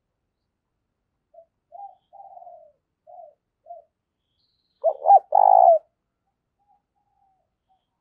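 Spotted dove cooing: a run of five short, soft coos, then a louder three-part coo about five seconds in.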